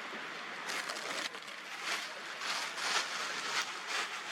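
Rain falling steadily, a hiss that swells and eases in uneven surges from about a second in.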